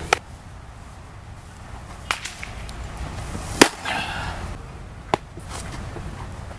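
A baseball pitch smacks into a catcher's leather mitt with one loud, sharp pop about three and a half seconds in. Three fainter smacks of the ball into a glove come before and after it.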